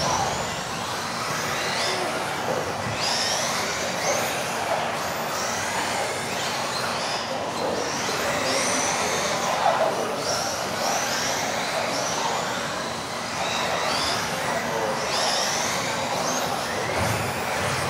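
Several modified-class electric RC off-road buggies racing together, their motors whining up and down in pitch as they speed up and slow through the corners, over a steady hiss.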